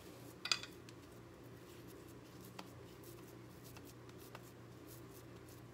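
Faint soft rubbing of hands pressing and rolling crumbly naan khatai dough into balls, over a low steady hum. One brief sharp click comes about half a second in, with a few faint ticks later.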